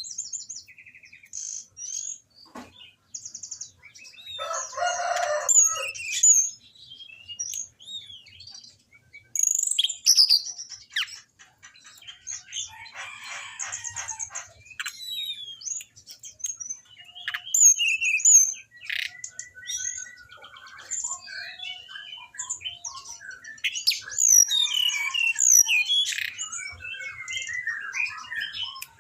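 Anis binbin thrush singing a rapid, varied song of whistled notes, chirps and trills that rise and fall, broken by a few longer harsh buzzy phrases.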